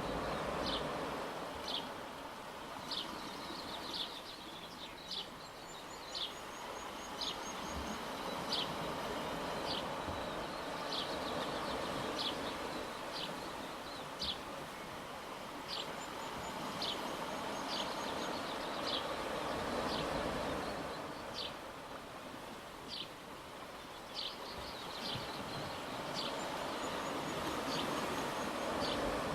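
Waves washing, swelling and ebbing, with short high chirps about once a second and, three times, a brief high trill that falls in pitch.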